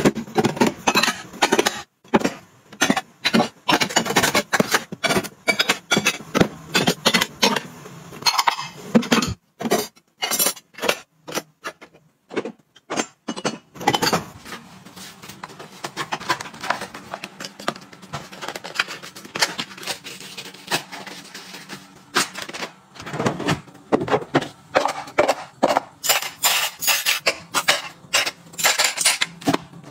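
Ceramic plates and bowls clinking and knocking as they are set into a drawer organizer, many quick clicks in a row. After a short lull there is a quieter, steadier stretch, and near the end metal spring clips clink and jangle as they are handled.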